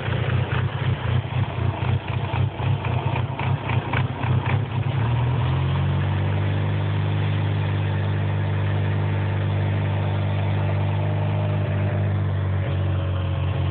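DSM turbocharged four-cylinder engine with a large vacuum leak at a poorly sealed intake manifold, running unevenly for about five seconds, then settling into a steady idle.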